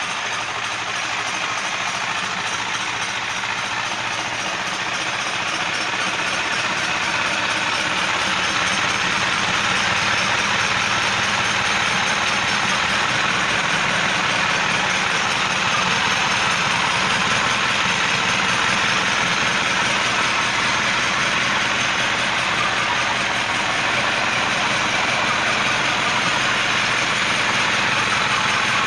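Isuzu 4HF1 four-cylinder diesel engine running steadily on its newly fitted mechanical injection pump, getting slightly louder over the first ten seconds.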